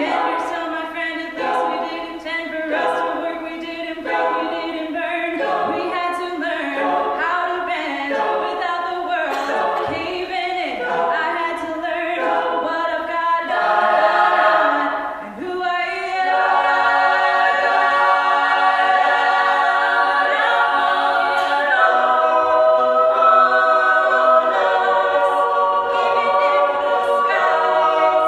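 Mixed-voice a cappella group singing, with a female soloist over the backing voices. For the first half the backing voices sing short repeated chords; about halfway through they swell into louder, long held chords.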